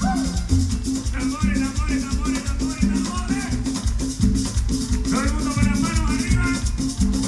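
Live salsa-style tropical band playing with a steady beat: bass notes, congas and a constant shaker rhythm, with a voice coming in over the band about a second in and again around five seconds.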